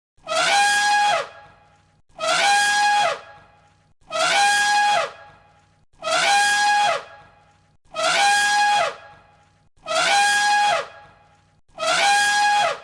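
Elephant trumpeting: seven identical brassy calls about every two seconds, each held on one pitch for about a second and then sliding down at the end, the same call looped.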